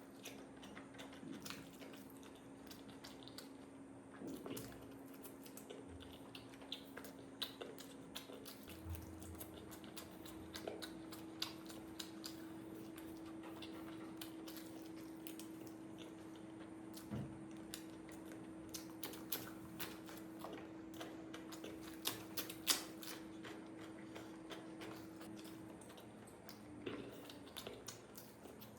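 Faint close-up eating sounds: chewing, with many small clicks and crunches as the food is eaten. A low steady hum runs underneath, stepping up in pitch about nine seconds in.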